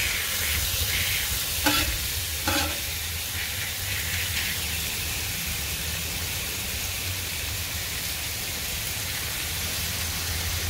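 Smashed burger patties sizzling steadily on a Blackstone flat-top griddle, with a steady low hum underneath. A steel spatula scrapes the griddle twice in the first few seconds as a broken patty is pushed back together.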